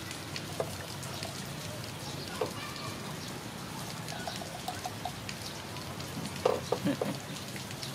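Steady patter of rain, with scattered light clicks, a few faint bird chirps, and a short cluster of louder clatter about six and a half seconds in.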